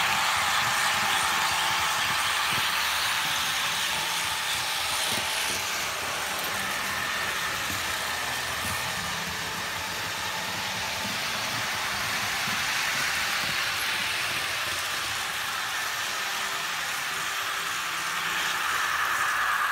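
Märklin HO model of the DB VT 10.5 'Senator' diesel railcar train running on the layout track: a steady rolling rumble of the model's wheels and motor on the rails, mixed with the diesel engine sound from its built-in digital sound decoder.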